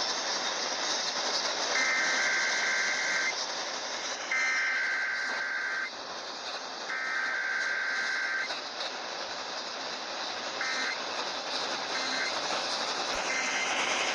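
Emergency Alert System SAME header: three screechy two-tone digital data bursts, each about a second and a half long and a second apart, followed near the end by three short end-of-message bursts, all over a steady radio hiss.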